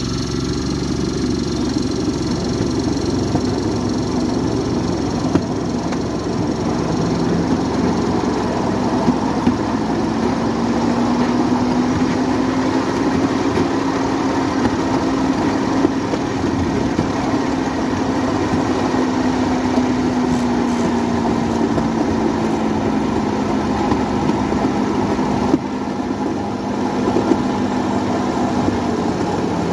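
Motorcycle engine of a motorodillo, a handmade rail trolley, running under way along the track. Its pitch climbs over the first several seconds, then slowly drops away toward the end.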